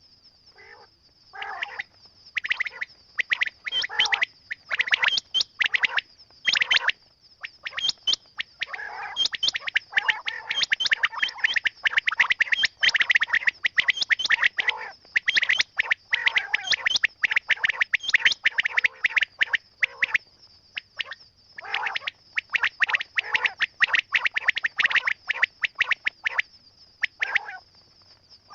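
Quail calling in rapid bursts of sharp chirps. The chirps are sparse at first, crowd together through the middle, and thin out near the end, over a steady high-pitched hum.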